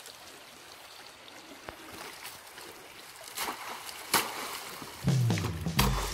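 Objects thrown into a shallow creek, landing with a few sharp splashes a second or so apart, over the faint trickle of the stream. Background music comes in near the end.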